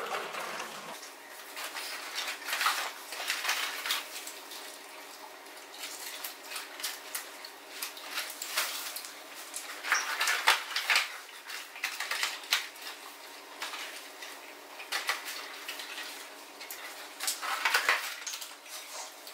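Cardboard chicken nugget boxes being handled and people eating: irregular rustles, taps and clicks as nuggets are pulled out of the boxes.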